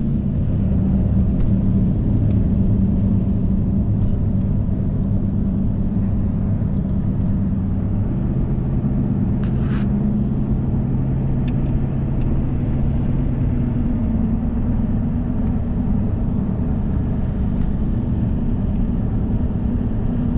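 Car driving, heard from inside the cabin: a steady low engine and road rumble whose hum shifts in pitch a couple of times, with a single click about halfway through.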